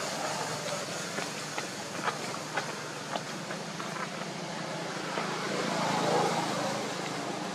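Steady low mechanical hum over a noisy background, with a few sharp clicks in the first three seconds and a swell about six seconds in.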